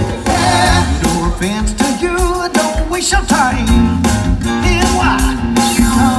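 Live band music: a lead singer over electric guitar and a band, with a steady beat.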